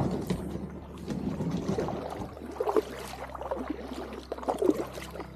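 Kayak paddle dipping and splashing in calm water as an inflatable kayak is paddled, with a louder stroke every second or two.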